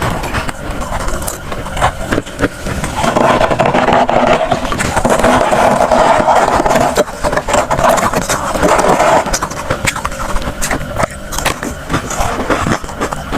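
Crunchy freezer frost being broken up: a stream of sharp crackles and crunches, with a louder, rougher stretch of scraping crunch in the middle.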